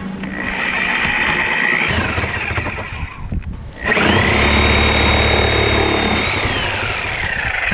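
Ryobi reciprocating saw fitted with a new carbide-tooth blade, run in two bursts against a wooden beam: a steady high motor whine that winds down about two seconds in, a short pause, then a longer run with a heavier low rumble from the blade working in the wood, winding down again near the end.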